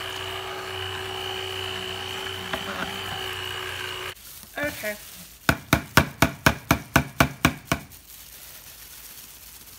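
Electric stick blender running at a steady pitch in soap batter, cut off abruptly about four seconds in. It is followed by a quick even run of about a dozen sharp knocks, about five a second.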